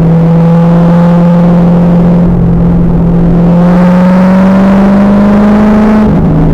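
2000 Pontiac Trans Am Firehawk's 5.7-litre LS1 V8 pulling hard under load on track, loud and distorted. The engine note climbs steadily with the revs, then drops suddenly about six seconds in at an upshift.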